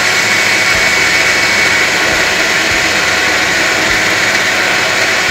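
Electric mixer grinder (mixie) with a steel jar running steadily, grinding soaked moong dal into a paste: a loud, even whirr with a steady high whine.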